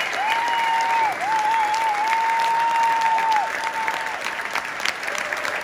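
Concert audience applauding: dense clapping, with a long, slightly wavering whistle held over it for about four seconds.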